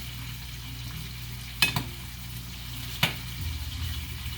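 Monkfish pieces sizzling in butter in a frying pan, a steady hiss broken by two sharp clicks about a second and a half apart.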